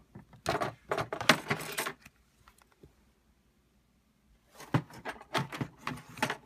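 Handling noise as the opened iPad mini is picked up and moved: two bursts of quick clicks and clatter, one about half a second in and one near the end, with a quiet gap between.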